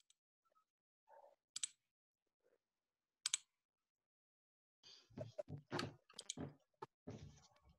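Near-quiet room with a few isolated sharp clicks, then a busy spell of short knocks, clicks and rustling starting about five seconds in.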